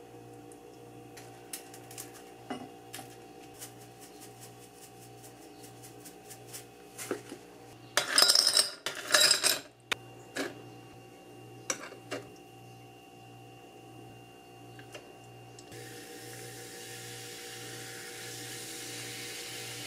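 Ice cubes tipped from a plastic scoop clatter loudly into a tall drinking glass about eight seconds in, amid light clinks and taps of glass and tableware. Near the end, sparkling water is poured over the ice and fizzes with a steady hiss.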